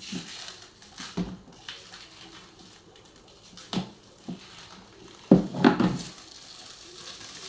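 Plastic furniture parts being handled and set down: scattered knocks and clatter, loudest in a short burst of knocks a little over two-thirds of the way through.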